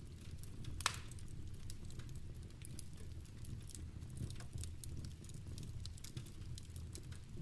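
Wood fire crackling in a fireplace, with scattered sharp pops, one louder pop about a second in, over a steady low rumble, mixed with the patter of rain.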